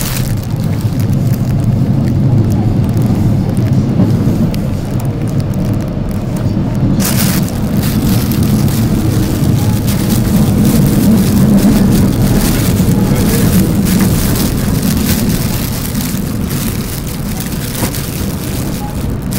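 Seoul Metro Line 3 subway train running between stations, heard inside the carriage as a loud, steady low rumble that eases off somewhat in the last few seconds. A plastic bag crinkles now and then close by.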